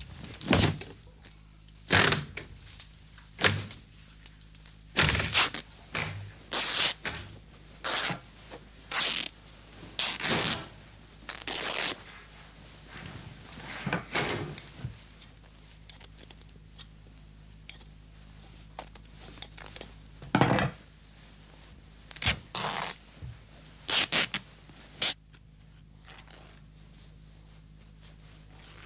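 Clothes being torn apart and cut with scissors: a string of short, irregular ripping and snipping sounds with occasional thuds. The bursts come thick at first, thin out in the middle, and come in a last cluster later on.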